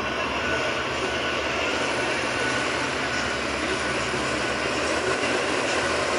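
An XCMG motor grader's diesel engine running steadily.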